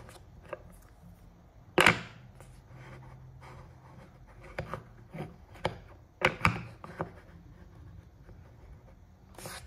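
Handling noise of a Nikon Nikkor 28mm f/2.8 manual-focus lens being turned in the hand on its plastic rear cap: scattered light clicks and knocks of metal and plastic. The loudest comes about two seconds in, and a quick run of them follows between about four and a half and seven seconds.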